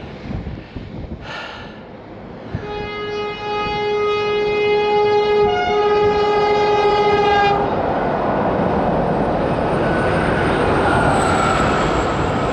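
A train horn sounds one long blast of about five seconds. The train then runs past close by, a loud, steady rush and rumble of wheels on the rails.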